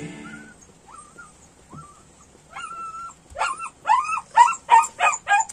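A dog whining and yipping: a few faint whines at first, then from about halfway a quick run of loud, high yips, about three or four a second.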